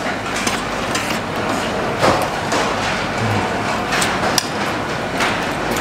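Steady restaurant background noise with a few sharp knocks and clinks, about four over the last few seconds, from handling at the table close to the microphone.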